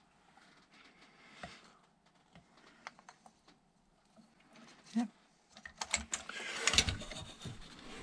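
Fork parts and tools being handled during motorcycle fork reassembly: light scattered clicks, a knock about five seconds in, then a busier run of clinks and scrapes near the end.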